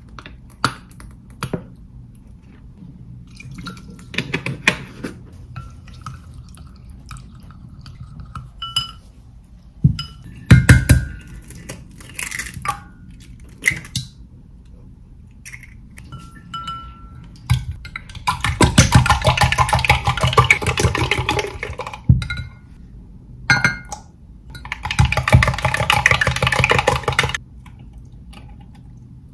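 Kitchen food-prep sounds: light clicks and knocks of a mayonnaise squeeze bottle and glassware, eggs cracked into a glass measuring jug about ten seconds in, then two spells of rapid whisking against glass, a few seconds each, in the second half.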